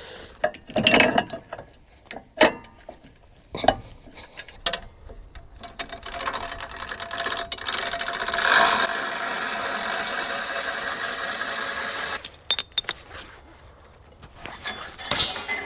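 Sawmill's winch running steadily for about six seconds and cutting off abruptly, between scattered metallic clicks and knocks of the cable and hook being handled.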